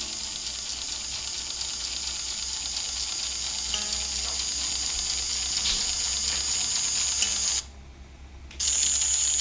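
Lego Mindstorms cable car's motor and plastic gear train whirring steadily with a high whine as it drives itself along the cable, gradually getting louder. The sound cuts out for about a second near the end, then comes back.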